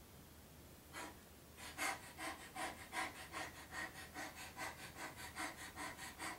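A woman imitating a contented dog's panting: quick, even, voiced pants in and out, starting about a second and a half in.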